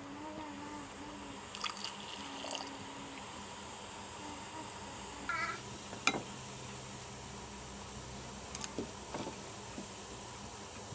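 A wooden pestle knocks a few times against a steel bowl. A few short pitched vocal sounds come near the start and again about five seconds in.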